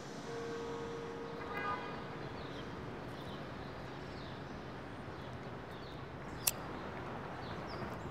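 City street ambience: a steady hum of traffic with small birds chirping now and then, a short horn-like tone about a second and a half in, and a single sharp click about two-thirds of the way through.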